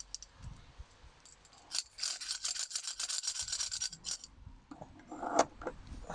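Hand file rasping in quick strokes against a steel chain link for about two seconds, followed a second later by a single sharp knock.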